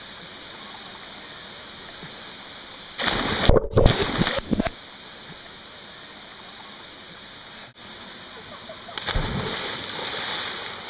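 Water running at a natural spring, a steady hiss. About three seconds in there is a loud splash lasting over a second. The water gets louder near the end.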